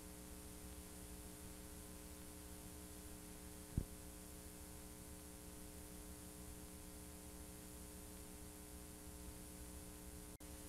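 Faint steady electrical hum and hiss from a VCR playing out blank videotape. A single pop comes about four seconds in, and there is a brief dropout near the end.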